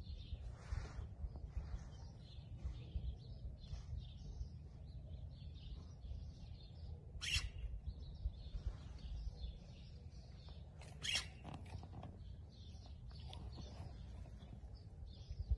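Small birds chirping and twittering on and off, with a few short, sharper chirps standing out, over a steady low rumble.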